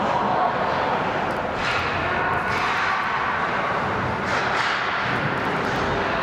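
Ice hockey rink during play: a steady din of the arena with several short hissing scrapes.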